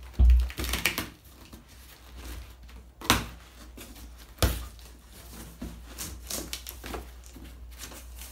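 Utility knife slicing the packing tape on a cardboard box and the cardboard flaps being pried open, with irregular scraping and clicks. A low thump comes just after the start, and there are two sharp knocks about three and four and a half seconds in.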